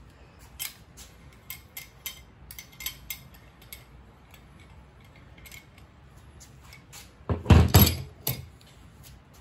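Small metal hand tools clinking and rattling as they are handled, with a louder burst of clattering knocks about seven and a half seconds in.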